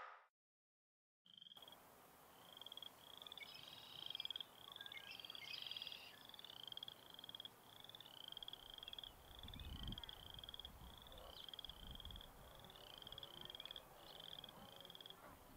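A chorus of frogs trilling: short, high, rapidly pulsed trills repeating about twice a second and overlapping, starting about a second in. A few faint low thumps come near the middle.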